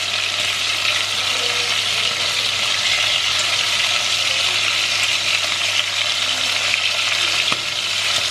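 Chicken pieces searing in hot oil in a cast-iron pot, sizzling steadily while they are turned over with metal tongs.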